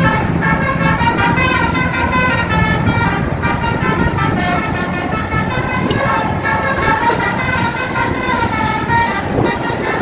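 A bus "telolet" horn, a set of musical air horns, playing a jingling melody with notes that keep changing without a break. Under it are the running of a motor scooter and road traffic.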